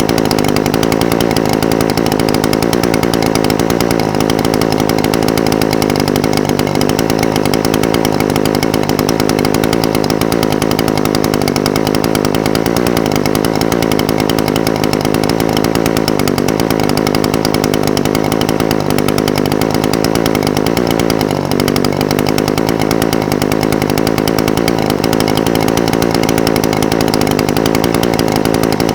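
Echo SRM-420TES brush cutter's two-stroke engine idling steadily, its pitch wavering slightly.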